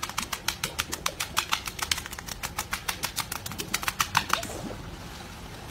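A seal rapidly patting its belly with its front flippers: a quick, even run of slaps, about six a second, that stops about four and a half seconds in.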